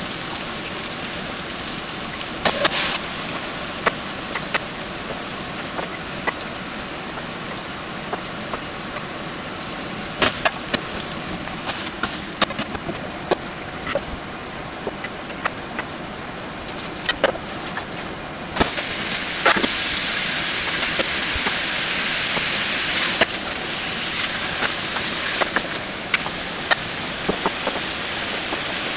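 Hot oil sizzling and popping in frying pans, first under potato chunks and then under beef chunks being seared, with many sharp pops over a steady hiss. The sizzle turns louder and brighter about two-thirds of the way through.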